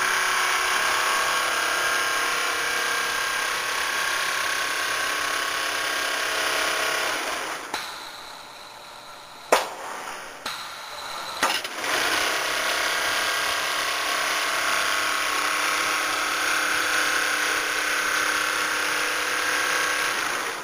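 Double-needle computerized quilting machine with a Pfaff sewing head stitching, a steady mechanical running. It stops about 8 seconds in, two sharp clicks come during the pause, and it starts running again about 4 seconds later until just before the end.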